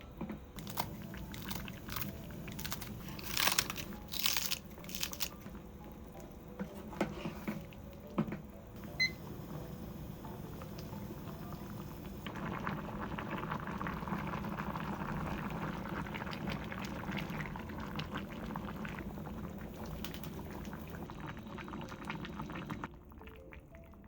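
Kitchen cooking sounds: scattered clinks and knocks of utensils and cookware, then, about halfway through, a steady hiss of food cooking on the stove that stops suddenly shortly before the end.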